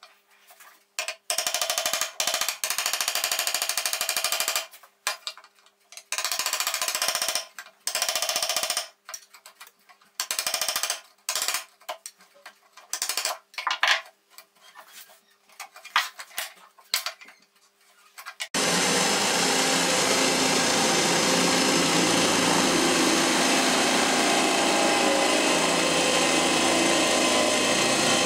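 For about 18 seconds, on-and-off scraping and cutting bursts from a chisel working the pine corner. Then an electric drill starts suddenly and runs steadily, its cutter bit boring into the pine.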